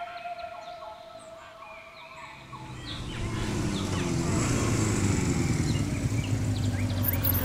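Motorcycle engine approaching, growing louder from about two and a half seconds in and then running steadily, with birds chirping throughout.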